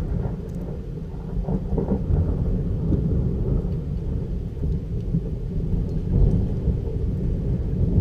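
Rolling thunder from a lightning strike about 1 km away: a long, deep rumble that swells and ebbs, loudest about six seconds in.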